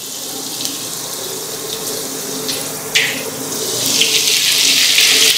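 Hot oil sizzling in a stainless-steel kadai as curry leaves and green chillies fry: a steady hiss that grows louder near the end, with one brief click about three seconds in.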